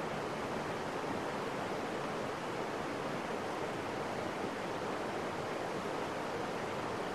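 Steady rush of water running over rocks into a river, even and unbroken throughout.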